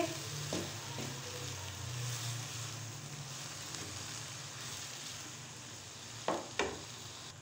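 Diced kaddu and tomatoes with spices sizzling in hot oil in a frying pan while being stirred with a wooden spatula. Two short knocks come about six seconds in.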